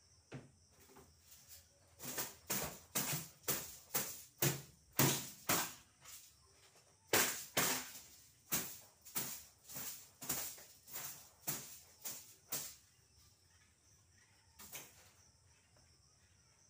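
Quick swishing strokes across a cotton bedsheet as the bed is swept and smoothed, about three a second for some ten seconds, then one more stroke a little later.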